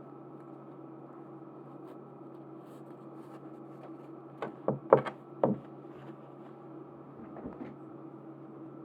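Small objects handled on a tabletop: a quick cluster of four sharp taps and clicks midway, then a few faint ticks near the end, over a steady low hum.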